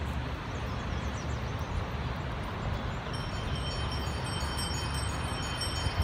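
A bell rings repeatedly from about three seconds in, over a steady low outdoor rumble.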